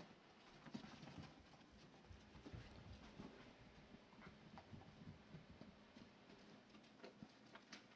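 Faint scuffling and irregular light taps and thumps of English Setter puppies romping and wrestling on carpet.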